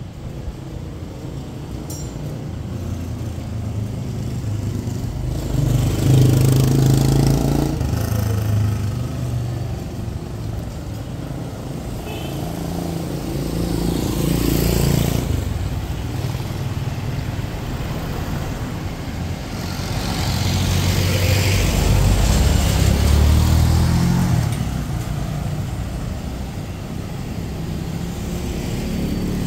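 Street traffic: motor vehicles passing close by one after another, their engine noise swelling and fading three times over a constant hum of traffic.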